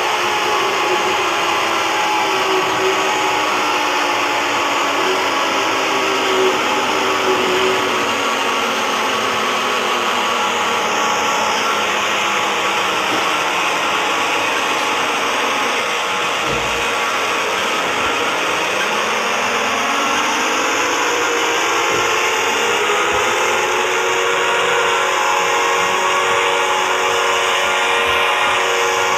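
Loud, harsh electronic alarm drone of a fictional Emergency Alert System alarm: dense noise layered with several tones that slide down together about halfway through, then climb back up and hold steady.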